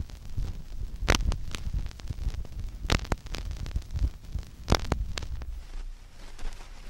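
A steady low rumbling hum, broken by about half a dozen sharp clicks that fall roughly in pairs.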